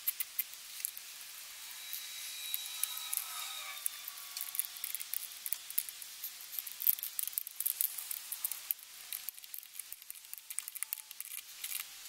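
Light metallic clicks and ticks of small nuts and a small wrench being worked onto the gauges' terminal studs, coming irregularly, with a faint squeaky tone a couple of seconds in.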